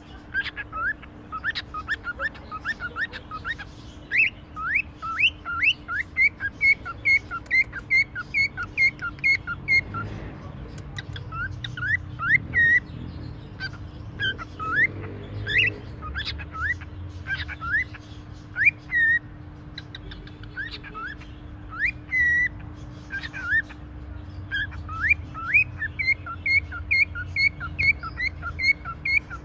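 Cockatiel whistling long runs of short, rising notes, several a second, with sparser stretches in the middle before the quick runs start again.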